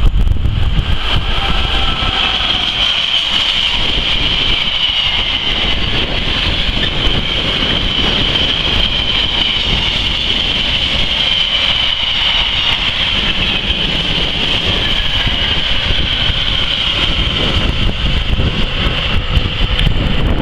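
Train passing the platform, a steady rumble with a high whine above it that drifts slightly lower in pitch in the second half.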